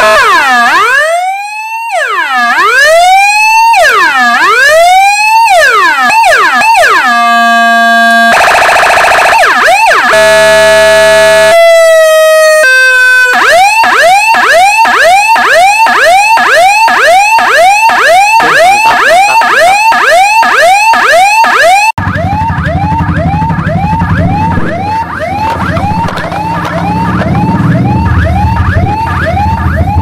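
Electronic 12-tone siren module with an LA4440 amplifier, sounding loudly through a horn speaker and changing tones: swooping sweeps about once a second, then steady and stepped horn-like tones, then a fast yelp of about three sweeps a second. A low hum joins about two-thirds of the way through. The siren is working again after its 7808 regulator fault was fixed.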